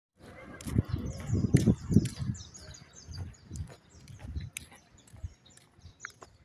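Wind buffeting the microphone in low, uneven gusts, loudest in the first two seconds, over many small birds chirping in quick, high, falling notes.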